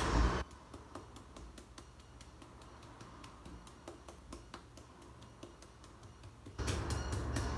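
Light, sharp, irregular taps as fish fillets wrapped in cling wrap are pounded gently flat with a mallet. A loud steady background hum drops away about half a second in and returns about a second before the end.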